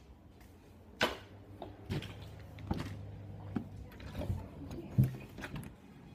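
Irregular knocks and bumps, about seven in six seconds, the loudest about a second in and about five seconds in, with a low hum through the middle: handling noise of a phone being moved around.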